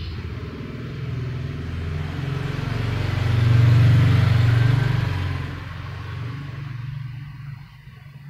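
A low rumble with a hiss above it, building to its loudest about four seconds in and fading away near the end.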